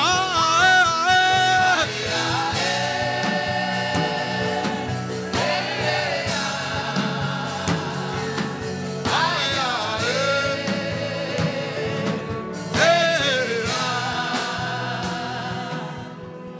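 Gospel worship song: sung voices holding long, wavering notes over a steady instrumental accompaniment, fading down near the end.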